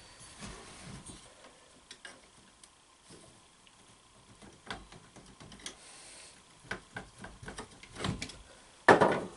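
Screwdriver clicking and scraping against the cast aluminium housing of a Delco CS-130 alternator as it pries the front and rear case halves apart, in scattered light ticks. A louder clack comes near the end.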